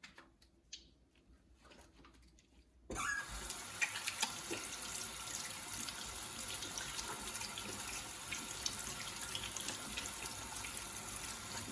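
Water tap turned on about three seconds in, then water running steadily into a sink.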